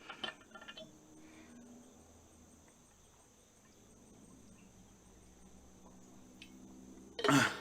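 Crickets chirring steadily in a high, even drone. A few light knocks come early on, and a short loud sound with a pitch to it breaks in near the end.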